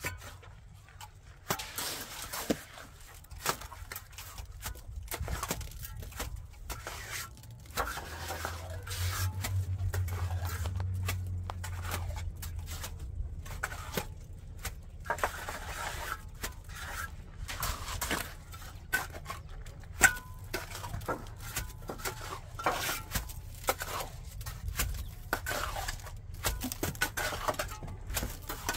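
Hand tools clinking, knocking and scraping on hard material in an irregular run of short strokes, as in plumbing and cement work. A low hum rises from about eight to twelve seconds in.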